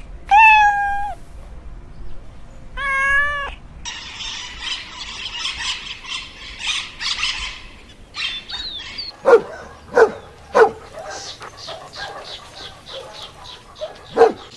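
A cat meows twice, each a short call that rises and falls. This is followed by a few seconds of high, dense chirping, then a run of short, sharp animal calls, the loudest near the middle of that run.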